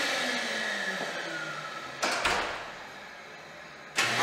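Wall-mounted automatic hand dryer spinning down after shutting off: the blowing fades and the motor's pitch falls. About halfway through there is a short bang. Near the end the dryer starts again with a sudden rush of air as a hand goes under it.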